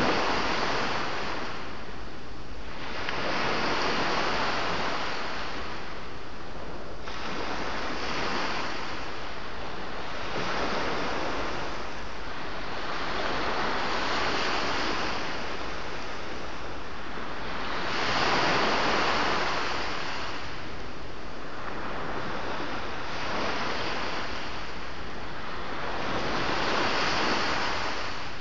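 Sea waves breaking and washing in, a rushing surge that swells and fades every few seconds.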